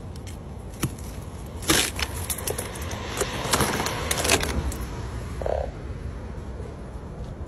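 Thick shell of clear ice cracking and crackling as it is pulled off a car's side mirror, with a few sharp snaps in the first half and a crunchy stretch after them.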